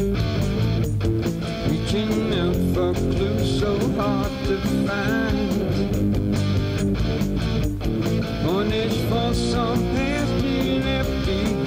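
Rock song instrumental passage led by electric guitar over a steady beat.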